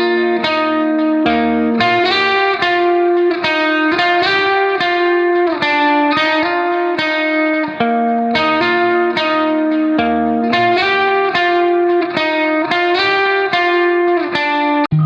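Background music led by a plucked guitar, its notes picked out at an even pace.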